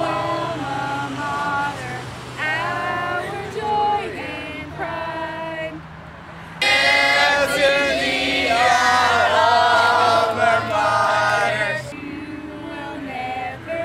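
A mixed group of young men and women singing a school alma mater together in long held notes ("Stands our noble Alma Mater… our joy and pride… you will never fail"). The singing grows louder about halfway through after a short break.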